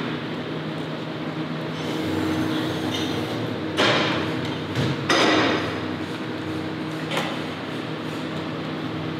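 Working noise of a slaughterhouse processing room: a steady machinery hum, broken by loud short bursts of hissing, clattering noise about 4 s in and just after 5 s, and a weaker one near 7 s, with metallic clinks from the line.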